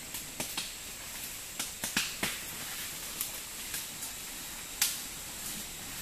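Sharp snaps and crackles of twigs and dry leaf litter breaking under the feet of Borneo pygmy elephants walking past, a dozen or so irregular cracks, the loudest about two seconds in and near the end, over a steady hiss with a thin high tone.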